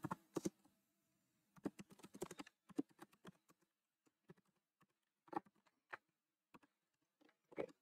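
Faint keystrokes on a computer keyboard, typed in short irregular runs with pauses between.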